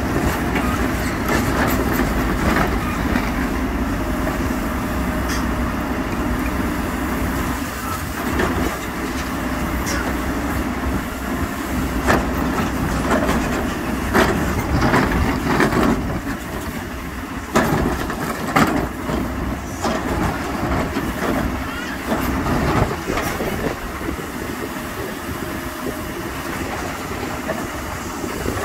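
Diesel engine of a Hidromek 102S backhoe loader running steadily, with repeated metallic knocks and rattles, thickest in the middle stretch.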